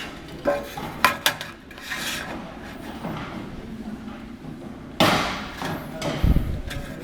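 Sharp knocks and clanks of sheet-metal J trim being handled and tapped: a few quick taps in the first second and a half, then a louder clatter about five seconds in and a heavy thump just after six seconds.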